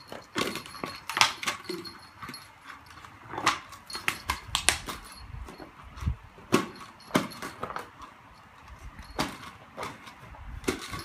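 A beagle chewing and pushing an empty plastic Coke bottle across a tiled floor: irregular crackles and knocks of the plastic, with several sharper clatters among them.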